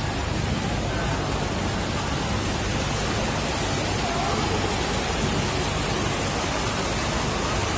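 Heavy rain and fast-flowing floodwater rushing down a street: an even, unbroken rushing noise.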